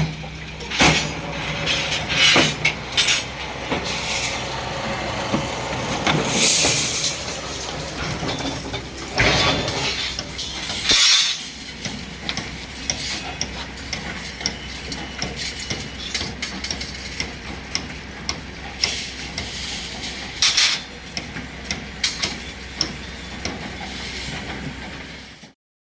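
Rebar thread rolling machine running: a steady motor hum with hissing and scattered sharp metallic knocks, cutting off suddenly near the end.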